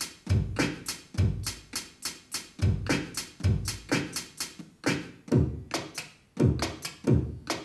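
Drum beat from the bChamp beatbox app on an iPhone: low kick thuds that drop in pitch, with snare and hi-hat clicks between them, in a steady repeating rhythm.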